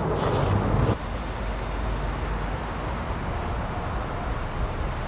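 Street traffic noise: a loud rumble of traffic that drops suddenly about a second in, leaving a quieter, steady hum of city traffic.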